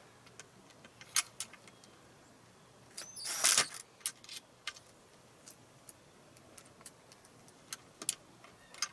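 Scattered small metallic clicks and clinks of gate-latch hardware and screws being handled, with one louder clattering burst about three and a half seconds in.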